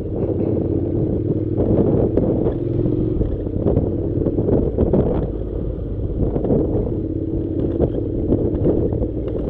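Honda NC700's parallel-twin engine running at a steady, moderate pace on a rough dirt track, with scattered clicks and knocks from the bike riding over the uneven ground.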